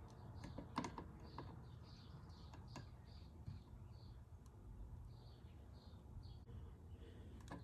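Faint, scattered small clicks and taps of soldering tools working on an Xbox One controller's circuit board, over a low hum, with a run of faint, short high chirps repeating a few times a second.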